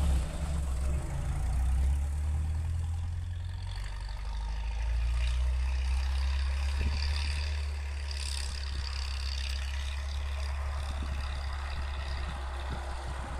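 ARO M461 off-roader's engine running as it drives and slides through snow, a low rumble that is loudest as it passes close at the start and then steadier as it pulls away.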